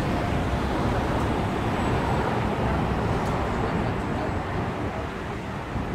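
Steady rumble of road traffic, an even noise with no distinct events.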